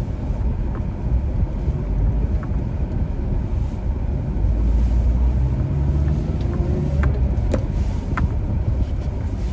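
Car engine and road noise heard from inside the cabin while driving, a steady low rumble. A few faint clicks come near the end.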